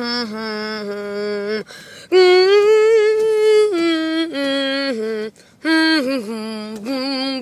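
A person humming a tune in long held notes, stepping between a few pitches, in several phrases with short breaks.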